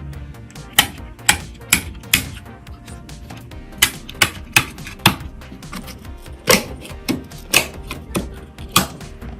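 Computer parts being handled during a PC build, making sharp, irregular clicks and taps about one or two a second, over background music.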